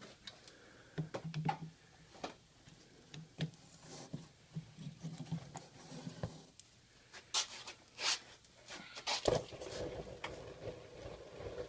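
Light clicks and clanks of steel locking pliers handling a red-hot steel vise part at the heat-treat oven, then, about nine seconds in, a sudden steady rush as the part is quenched in a bucket of automatic transmission fluid and the oil flares up in flames.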